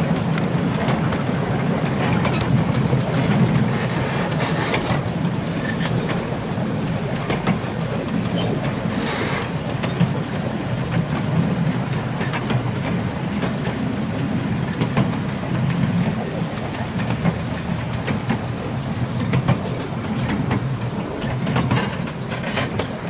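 7¼-inch gauge miniature railway train running along the track, heard from a carriage: a steady low rumble from the wheels with frequent short clicks and knocks from the rails.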